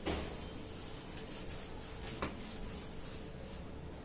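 Felt whiteboard eraser rubbed back and forth across a whiteboard, a rhythmic swishing of strokes, with a light knock at the start and another about two seconds in.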